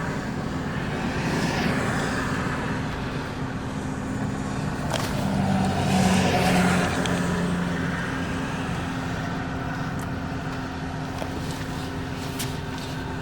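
Road traffic: vehicles passing by over a steady engine hum, with the loudest pass about six seconds in.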